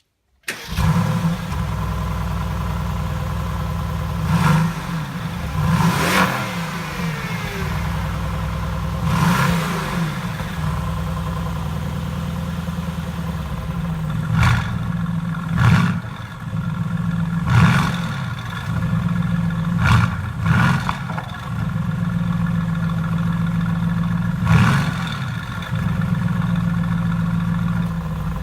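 A high-performance car engine starting up with a brief flare, then settling to a steady idle and being revved in about nine short blips, each rising and falling quickly.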